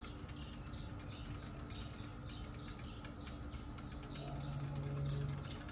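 A spoon stirring milk in a glass mason jar, clicking against the glass in quick irregular knocks, with small birds chirping in the background. A low hum comes up about four seconds in.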